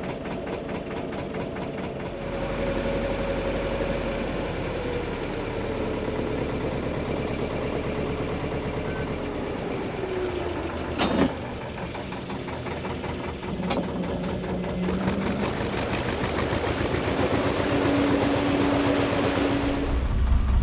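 Narrowboat engine running steadily, its pitch easing slowly down through the first half as the boat slows, with one sharp click about halfway through.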